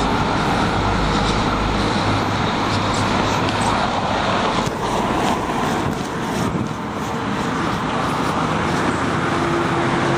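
Road traffic noise with a steady low hum running under it: a faked 'strange sky sound' laid over street ambience.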